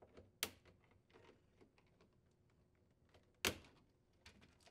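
Plastic retaining tabs of a refrigerator icebox cover snapping as a small flathead screwdriver pries them free: a sharp click about half a second in, a louder snap about three and a half seconds in, and a few faint plastic ticks between.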